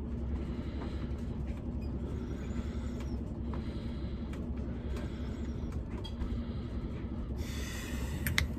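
Steady low mechanical hum of running machinery, with a brief hiss and a few clicks near the end.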